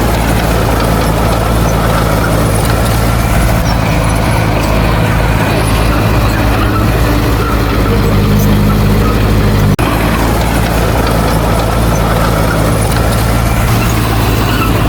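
Heavy diesel engine of earth-moving machinery running steadily at a constant pitch, with a momentary break a little under ten seconds in.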